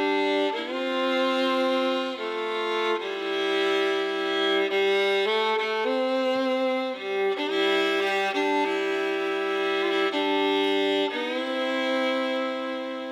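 Background music: a slow fiddle or bowed-string melody with sustained notes, fading out near the end.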